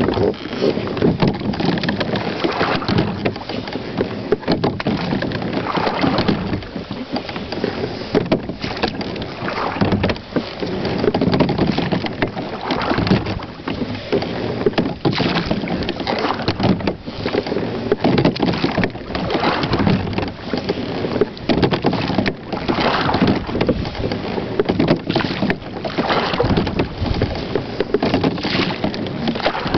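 Whitehall Spirit Solo 14 slide-seat rowing boat under way with carbon-fibre oars at an easy pace: a stroke about every three and a half seconds, each swelling in oar, oarlock and water noise, over a steady rushing noise.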